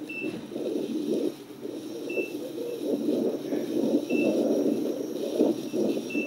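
Steady rumbling wind and ground noise from riding a KingSong electric unicycle down a rough dirt trail, with a short high beep about every two seconds.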